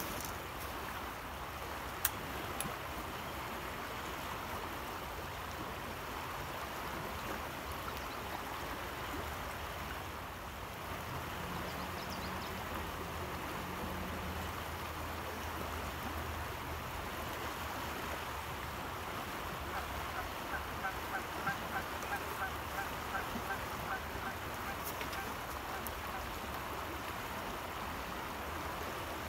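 Steady rush of fast, rough river water, with a bird calling in a quick run of short repeated notes for a few seconds about twenty seconds in.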